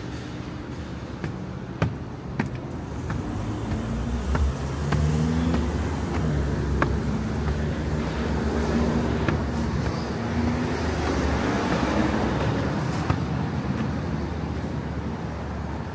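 Street traffic: a motor vehicle's engine running as it comes close and passes. It grows louder from about four seconds in, is loudest past the middle, then fades, with a few sharp clicks along the way.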